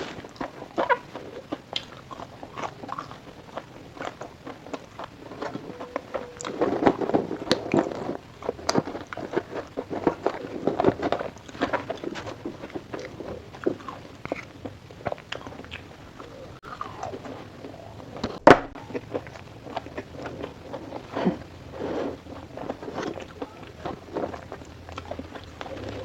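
A person biting and chewing fried food (french fries, sausage, fried chicken), close up, in irregular crunches and wet chewing, with one sharper crack about 18 seconds in.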